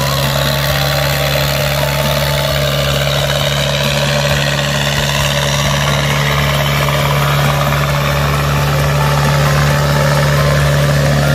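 Diesel engine running steadily at an even, unchanging speed, a constant low hum.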